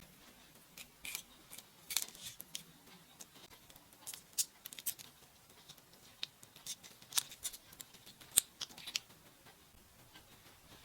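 Kitchen scissors snipping whole raw shrimp during cleaning: a run of irregular, sharp snips and clicks, some in quick clusters.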